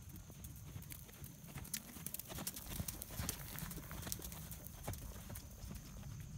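Horse's hoofbeats on a sand arena, uneven and soft, with a few sharper clicks in the middle as the horse passes close, over a steady low rumble.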